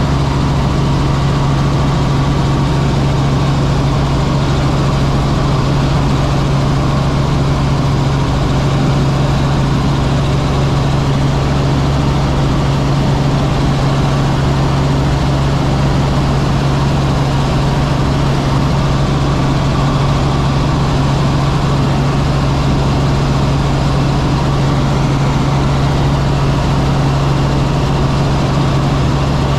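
Helicopter in steady cruise heard from inside the cabin: a constant drone of engine and rotor with a strong, even low hum that does not change.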